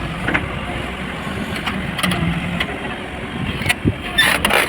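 Heavy construction machinery engine running steadily, with a few sharp knocks near the end.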